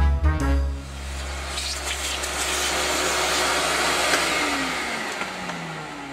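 Vacuum cleaner running as it sucks up plastic filing dust, then switched off about five seconds in, its motor whine falling as it spins down. A few seconds of swing music end in the first second.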